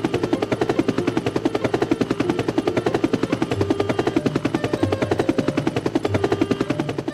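Helicopter rotor sound effect: a rapid, even chopping of the main rotor blades as the helicopter lifts off, cutting off abruptly at the end.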